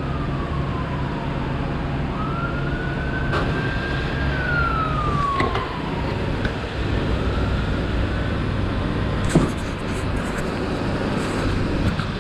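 An emergency-vehicle siren wailing, sliding slowly up and down in pitch, over a steady low rumble of traffic. A few sharp knocks sound through it.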